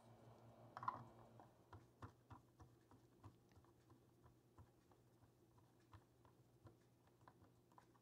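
Mostly near silence with faint, scattered small clicks from a screwdriver turning the screw terminal of a solar charge controller to clamp a wire. The loudest click comes about a second in.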